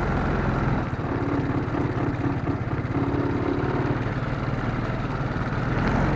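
Engine of an off-road ranch vehicle running steadily, with a low, even hum.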